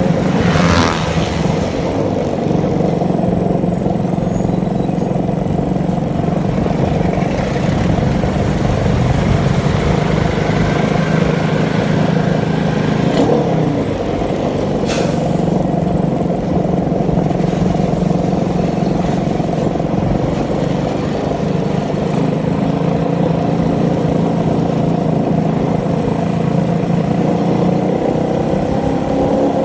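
Motorcycle engine running steadily while the bike is ridden along. Its pitch dips and climbs back about halfway through, then holds steady again.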